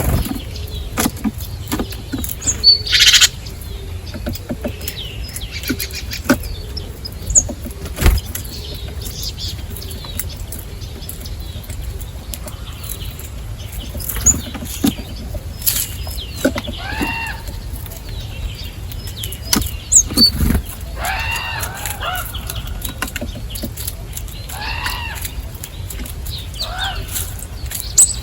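Small birds chirping at a feeding spot, in several short bursts of rising-and-falling notes, over frequent short clicks.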